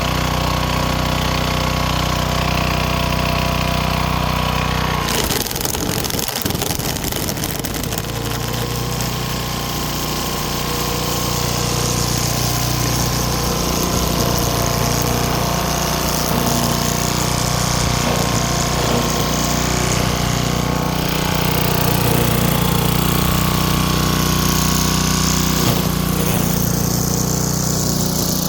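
Small gas engine of a Craftsman wheeled string trimmer running at high speed, running on a new spark plug, cleaned carburettor and fresh gas. About five seconds in the steady note turns rougher and less even, as the trimmer line cuts into weeds.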